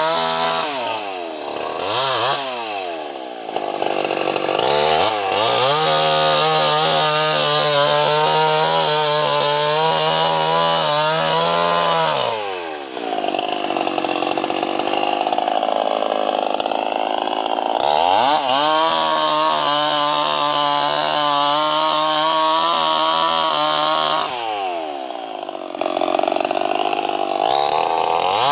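Two-stroke chainsaw running hard, revved up and down several times. In two stretches its clear pitch sinks into a rougher sound, as when the chain bites into wood under load.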